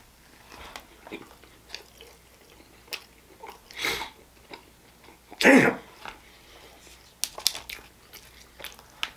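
Close-miked chewing and biting of a chicken sandwich, with wet mouth clicks and smacks. A louder breathy noise comes about five and a half seconds in.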